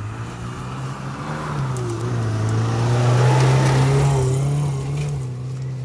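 Off-road 4x4 engine pulling past close by on a dirt track. Its note steps up just under two seconds in, is loudest a second or so later as the vehicle passes, then eases off.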